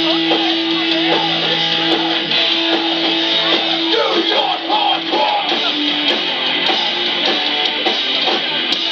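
Hardcore punk band playing live, loud distorted electric guitars leading, with a note held steadily through the first half.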